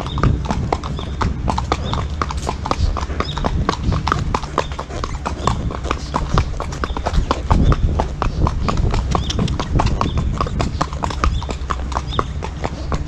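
Horse's hooves clip-clopping on a paved road at a walk: a quick, uneven run of sharp clicks from the hoof strikes on the asphalt, over a steady low rumble.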